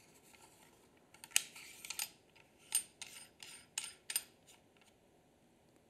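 M42-to-Canon adapter ring being screwed onto the thread of a Helios 44-2 lens by hand: a string of faint clicks and rubbing scrapes of metal on metal, starting about a second in and stopping after about three seconds.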